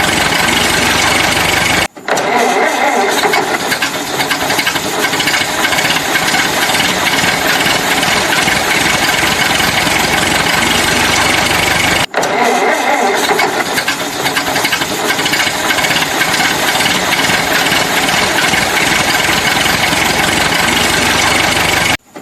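Construction-vehicle engine running loudly, the same stretch of sound repeating about every ten seconds with a brief sharp break between repeats, each repeat opening like an engine starting up.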